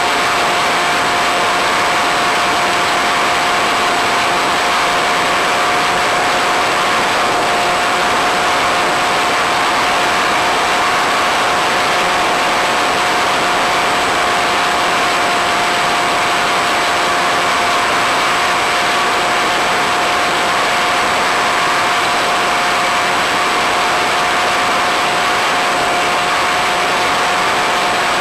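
The electric pusher motor and propeller of a Multiplex Easystar model plane running at steady throttle. It makes a constant whine over a loud, even rush of air and hiss.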